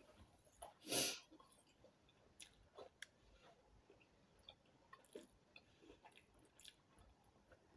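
Faint mouth sounds of someone chewing soft twisted marshmallow candy, with scattered small clicks and one brief louder hiss about a second in.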